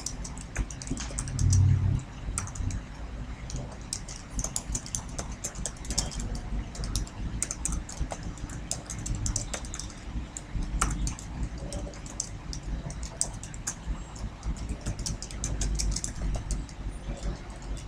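Typing on a computer keyboard: a run of irregular key clicks as a sentence is typed, over a low steady hum. A short low rumble, the loudest moment, comes about two seconds in.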